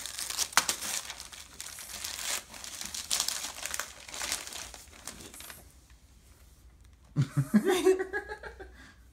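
Gift-wrapping paper being torn and crumpled by hand as a present is unwrapped, with crackling rips for about five and a half seconds. A person laughs briefly near the end.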